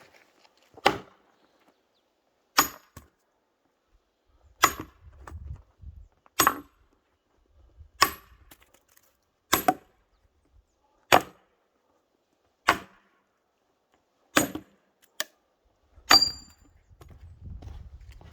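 Pine firewood being chopped: about ten sharp blade strikes on wood at a steady pace, one every second and a half or so.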